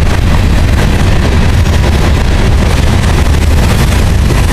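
Covered grain hopper cars of a freight train rolling past close by: a loud, steady rumble of steel wheels on rail.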